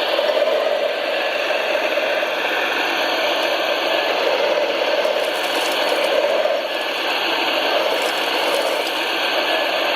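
Radio-controlled model construction machine's electric drive motors and gearboxes running steadily, a continuous whir with a gear rattle.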